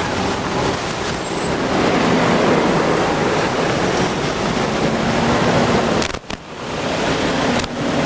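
Wind rushing and buffeting on the microphone, a steady loud roar that drops out briefly about six seconds in.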